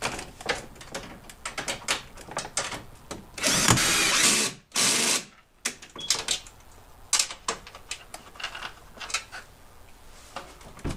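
Side-mirror mounting bolts on a Ford F150 door being tightened down with a tool: scattered clicks and rattles, with two short bursts of fast mechanical rattling about three and a half and five seconds in, the first about a second long and the loudest sound.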